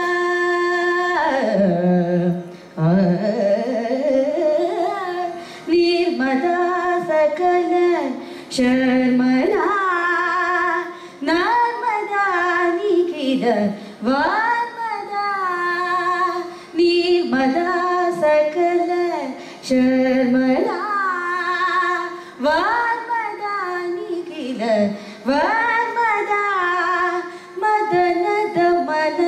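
Female Carnatic vocalist singing a kriti in long melodic phrases. The pitch sweeps up and down in sliding ornaments (gamakas), with short breaths between phrases.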